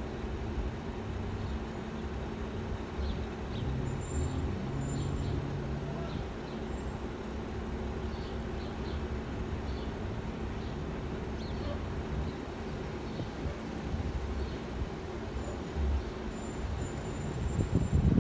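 A CNG-fuelled school bus engine runs with a steady low rumble as the bus creeps forward at walking pace. A louder low rush comes near the end.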